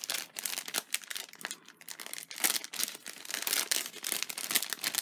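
Clear plastic cellophane bag crinkling and crackling irregularly as fingers handle it and work it open.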